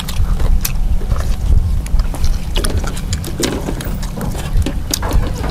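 Wind buffeting the microphone, making a heavy, uneven low rumble, with scattered light clicks and taps from eating with chopsticks and rice paper.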